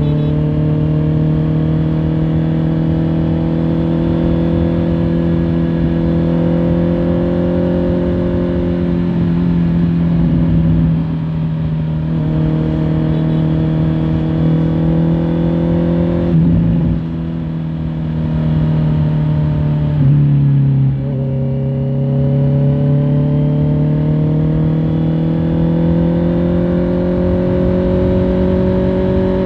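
Honda CBR650R's inline-four engine heard from the rider's seat under way, its pitch climbing slowly as it pulls. There are short throttle lifts about a third in and again past halfway, and a sharp drop in pitch a little over two-thirds in, as with a gear change, before it climbs again.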